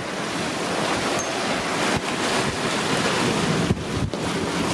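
Strong wind buffeting the microphone over the steady rush of rough sea, waves breaking and water streaming past a sailing yacht's hull as she runs at about six knots.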